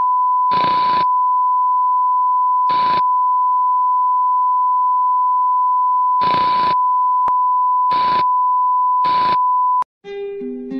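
Steady high-pitched test-tone beep of a colour-bars screen, broken five times by short bursts of static hiss, then cut off abruptly near the end. After a brief silence, gentle plucked-guitar music begins.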